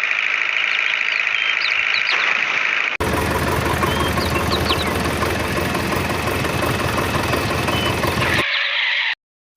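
A steady, rough engine-like running noise that changes abruptly about three seconds in and again near the end, then cuts off to silence just before the end. A few faint high chirps sound over it.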